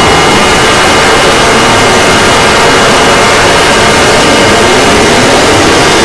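Heavily distorted siren sound: a loud, even hiss of static with faint steady tones held beneath it.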